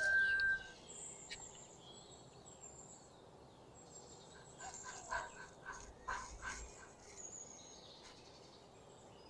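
Faint animal calls over quiet outdoor background noise: a brief steady call right at the start, then a short run of repeated calls about five seconds in.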